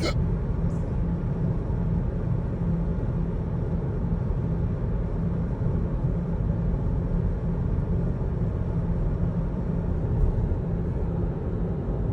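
Steady drone of road and engine noise inside a moving car's cabin, with a brief sharp sound right at the start and a fainter short one about ten seconds in.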